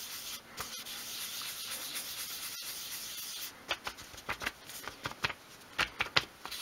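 Cotton pad rubbing chalk pastel dust into paper on a cutting mat: a steady soft scrubbing for the first three seconds or so, then a run of short, quick scuffing strokes.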